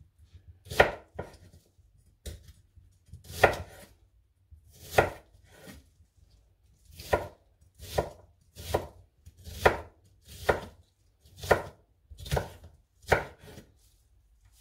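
Large kitchen knife chopping an onion on a wooden chopping board: about a dozen separate cuts, slow and uneven at first, then about one a second.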